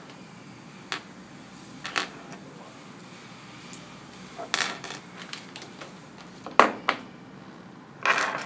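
Clear plastic parts bags rustling and crinkling while small screws and hardware click down onto a tabletop, in scattered short bursts with one sharp click a little past the middle.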